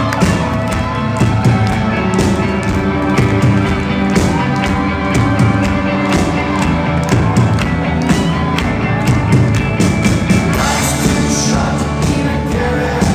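Live rock band playing a song, with drums keeping a steady beat under sung vocals, loud as heard from the audience.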